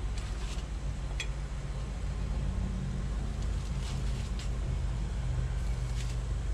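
A steady low rumble with a hum. Over it come a few light clicks and taps as fish fillets are handled in an aluminium foil pan of breading.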